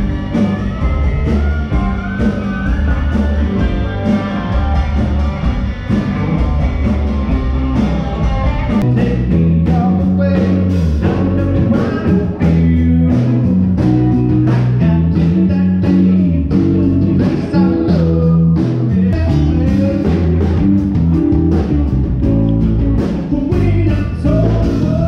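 Rock band music with guitar and singing, a loud, unbroken mix.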